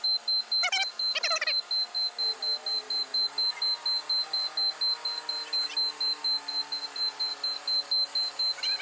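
Forklift warning beeper sounding a rapid high-pitched beep, about four a second, over the forklift's engine running and changing pitch as it works.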